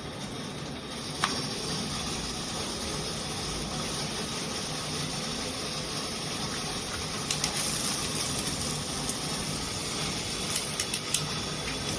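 Water spraying steadily from a shower head, an even hiss, with a few sharp taps or clicks about a second in and again later on.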